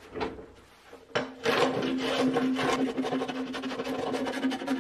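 Wood being hand-sanded: a fast, steady back-and-forth scrubbing over the face of a laminated 2x6 board frame, starting about a second in after a light knock.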